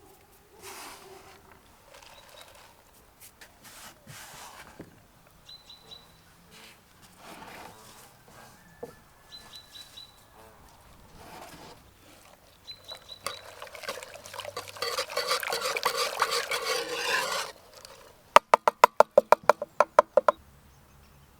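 Food preparation with kitchen utensils: scattered small handling sounds, then a few seconds of steady scraping and stirring, then a quick regular run of about a dozen sharp knocks, the loudest sounds here.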